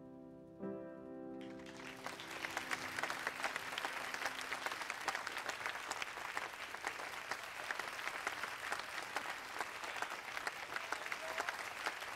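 A piano chord is struck just under a second in and rings out. About a second and a half in, audience applause begins and carries on.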